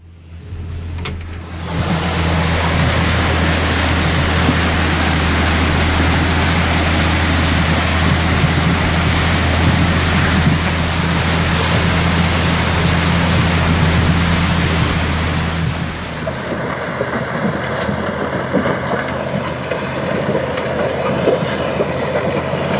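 Front loader's diesel engine running steadily under the loud rush of muddy floodwater. About two-thirds of the way through the rushing drops away and a steady engine sound goes on.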